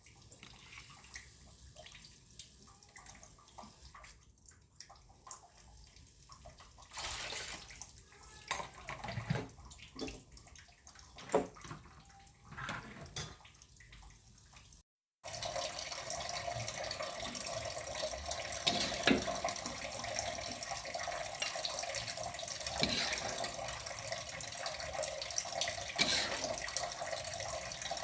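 Kitchen sounds: a few scattered clacks and handling noises, then, from about halfway, a tap running steadily into a sink.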